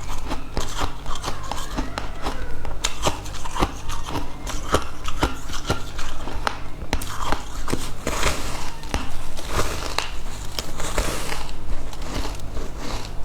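Close-miked eating: crisp bites and chewing of crunchy fried food, a dense run of sharp crackling crunches, over a steady low hum.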